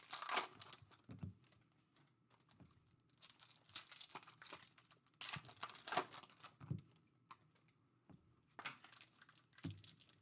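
Foil wrappers of Topps Chrome trading-card packs crinkling and tearing as they are opened by hand, in short irregular bursts with brief pauses.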